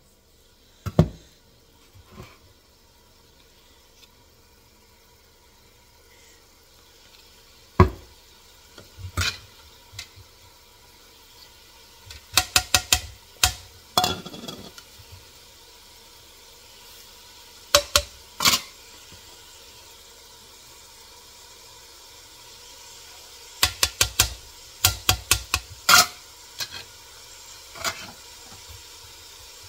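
Spoons and bowls clinking and knocking: scattered sharp knocks and several quick runs of four to six taps as spices are shaken into a steel bowl of gram flour, over a faint steady hiss.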